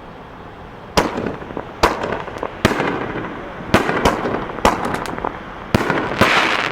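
Fireworks going off: about eight sharp bangs at uneven intervals, starting about a second in, each with a ringing tail, and a denser hiss near the end.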